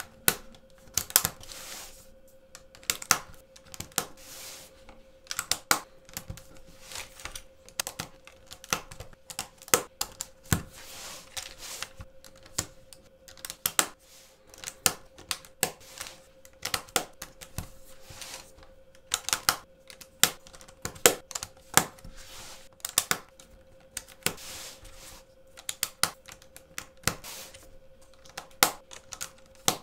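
LEGO plates clicking and clacking against each other as a hinged kinetic LEGO sculpture is flexed and folded, in quick, irregular clicks of varying loudness.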